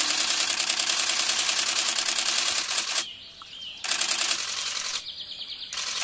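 Insects buzzing in a fast, steady, even pulse that cuts out abruptly twice for under a second, about three seconds in and again near five seconds.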